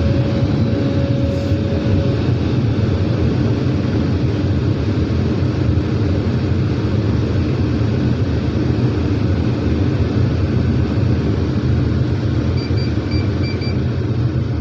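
Heavy diesel engines of an excavator and a dump truck running steadily while soil is loaded and the full truck pulls away. Near the end there are four short, high warning beeps.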